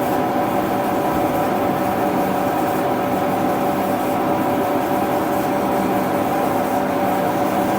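DoAll band saw running with its hydraulic pump and main drive on while the hydraulic table travels back to its start position: a steady machine hum with a steady whine over it.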